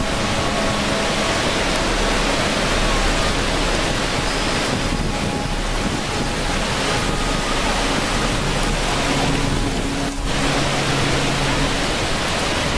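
Steady, even rush of falling water: a dense hiss with no breaks.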